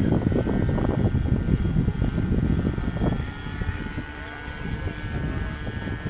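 Motor and propeller of a radio-controlled model airplane in flight, a steady high-pitched drone, under a gusty low rumble of wind on the microphone.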